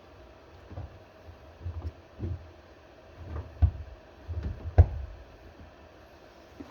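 Irregular dull knocks and clunks with a few sharp clicks, from parts being handled and set down on a work surface: a small bilge pump, switch and wiring. The loudest knocks come a little under four and about five seconds in, over a faint steady hum.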